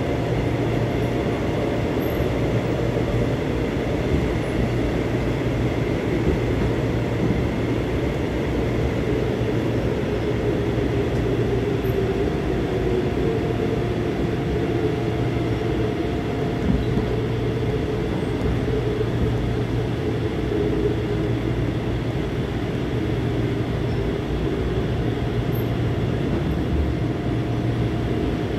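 Busan Metro Line 1 subway train, a thyristor-chopper car, running steadily through a tunnel as heard inside the passenger car: an even rumble of wheels and running gear with a faint steady whine over it.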